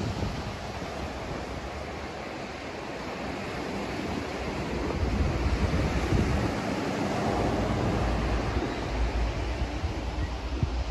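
Ocean surf washing onto the beach, with wind buffeting the microphone; the low wind rumble grows stronger about halfway through.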